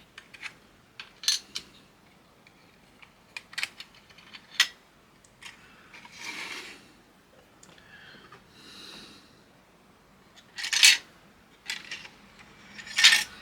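Light clicks and taps of hobby tools and small plastic kit parts being handled and set down on a workbench, with a couple of louder clatters near the end.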